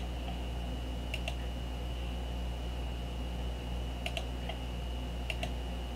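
Sharp clicks of computer input, mostly in close pairs, four or five times, over a steady low electrical hum and a faint high-pitched whine.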